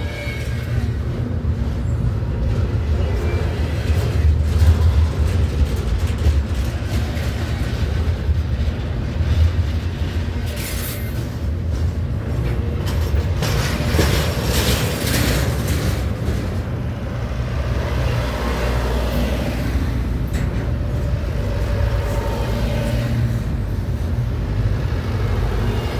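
CN freight train rolling past: a steady, heavy low rumble of the cars on the rails, with brief hissing bursts around the middle.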